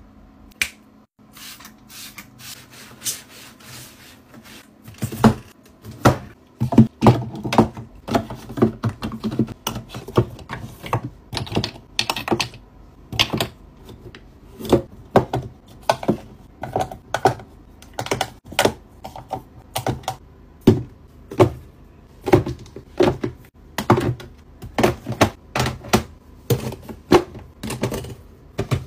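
Makeup palettes, compacts and bottles being picked up and set down into the divided compartments of a makeup train case: a steady run of clicks, taps and knocks. They are softer for the first five seconds or so, then louder and come one or two a second.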